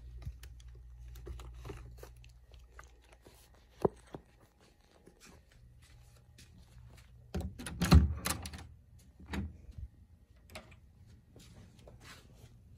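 Toiletries and small plastic containers being picked up and handled: scattered light clicks and knocks, a sharp knock about four seconds in, and a louder burst of clattering and rustling around eight seconds in.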